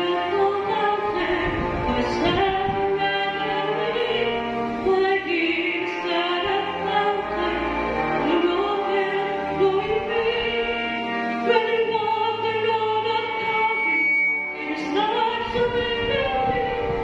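A woman singing a solo song into a handheld microphone, holding long notes, with instrumental accompaniment underneath.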